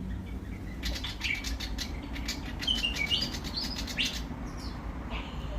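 Willie wagtail calling: groups of short, clear chirping notes, some stepping up and down in quick runs, with a rapid ticking chatter about a second in. A steady low rumble sits underneath.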